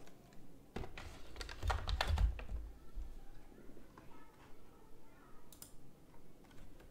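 Nintendo Switch console pushed down into its dock: a run of plastic clicks and knocks with a low thump as it seats on the connector. A few faint clicks follow.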